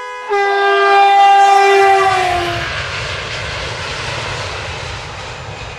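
A train horn sounds one long chord that sags in pitch as it fades out after about two seconds, followed by the steady low rumble of a passing train.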